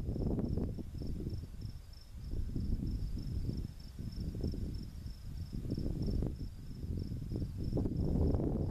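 Crickets chirping in a steady, high, pulsing trill, a few pulses a second, over a louder low rumble that swells and fades.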